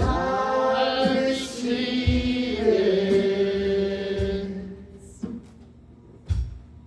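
Church worship singing: voices holding long, drawn-out notes that glide between pitches, fading out about five seconds in to a quiet stretch with a few soft knocks.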